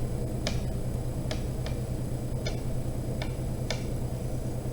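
Light ticking clicks, roughly two a second and not evenly spaced, over a steady low hum.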